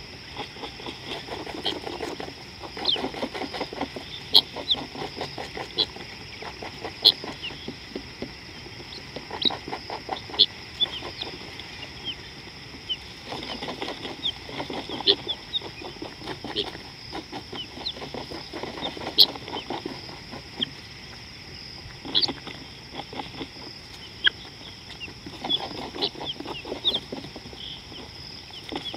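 Wild outdoor soundscape: a steady high insect drone with frequent short high bird chirps. Several bursts of rapid low pulsed animal calls, each lasting a couple of seconds, come near the start, in the middle and near the end.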